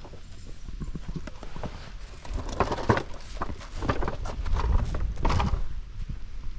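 Irregular knocks and clicks of hand tools being handled against the car, with a low rumble underneath.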